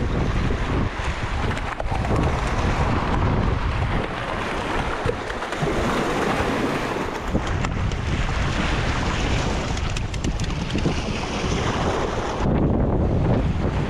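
Wind buffeting the microphone with a heavy rumble, over waves breaking and washing against the rocks of a jetty. The higher hiss drops away near the end while the rumble carries on.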